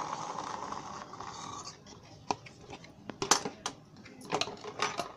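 Steel kitchen bowls and fresh green peas being handled: scattered light clicks and clinks, after a steady hiss that fades out over the first two seconds.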